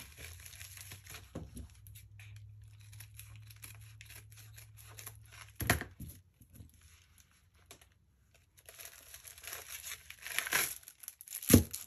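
A foil-and-plastic packaging pouch crinkling and being torn open by hand, with a few sharp rips, the loudest near the end.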